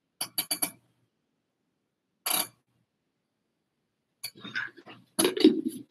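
Plastic flour container and bottle cap being handled as flour is tipped into the cap: a quick run of four light clicks, a single short scrape about two seconds in, then a cluster of clicks and a louder clatter near the end.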